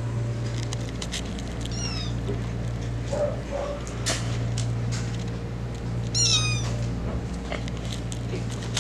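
Young kittens mewing: a few short, high-pitched mews, one about two seconds in and a clearer one about six seconds in. Light clicks sound over a steady low hum.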